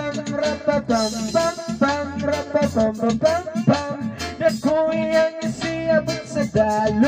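A song with singing over a backing track of guitar and a steady beat.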